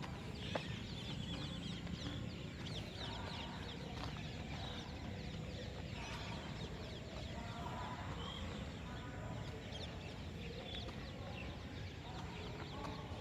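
Many birds chirping and chattering in quick, short calls over a steady low rumble, with a single sharp click about half a second in.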